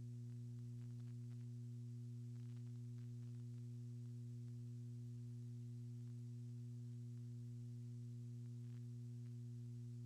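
Steady low electrical hum with its overtones, unchanging throughout, with a few faint ticks over it.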